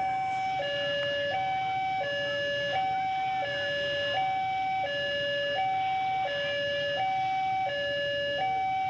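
Railway level crossing warning alarm: an electronic two-tone signal warning of an approaching train. It alternates evenly between a higher and a lower note, each held for about three-quarters of a second.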